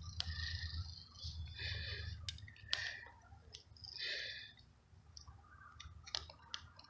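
A hand tap being turned into a bolt hole in a bike engine's crankcase to cut M8 threads: scattered clicks and short bursts of scraping as the tap is forced round under heavy pressure, not yet fully biting.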